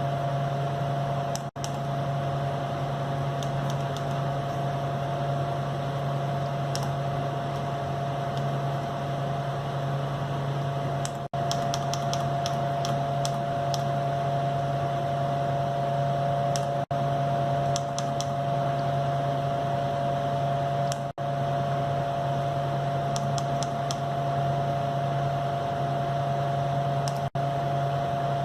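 Clusters of light clicks from the buttons on a fire pump controller's keypad being pressed as numbers are entered, over a steady electrical hum.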